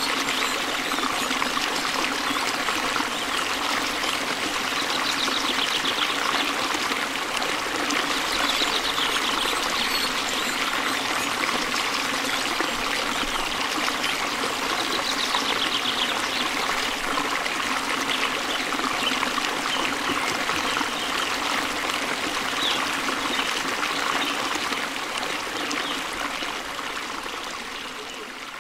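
Water splashing steadily onto a concrete floor, easing off a little near the end.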